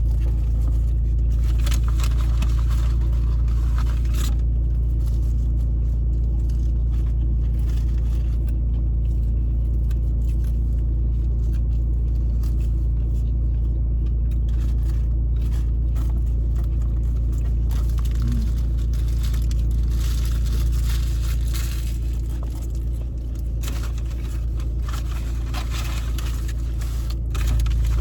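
Steady low hum of a car idling, heard from inside the cabin, with intermittent rustling and crackling on top, busiest in the second half.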